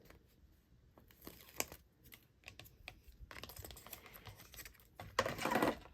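Paper sticker sheet being handled and its backing peeled off at the crease: faint scattered clicks and crackles, with a louder papery rustle near the end.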